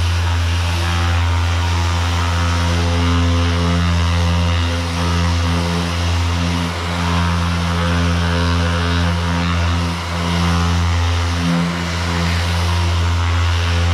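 Power sander running steadily with 240-grit paper over cured body filler on a car panel: a loud, even motor hum with sanding hiss, briefly dipping about eleven seconds in.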